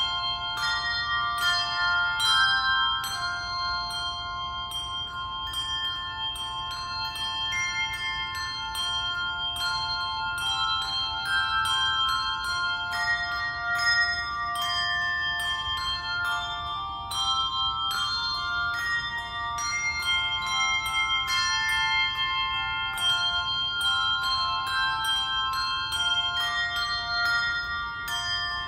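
Handbell choir playing a piece: bells struck in quick succession, their notes ringing on and overlapping into chords.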